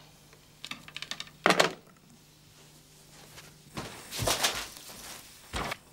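Household handling noises, no speech: a few quick clicks and a sharp thump, typical of a telephone handset being put down on its cradle. Later comes a louder rustling stretch and another short thump, like a door and someone coming into a room.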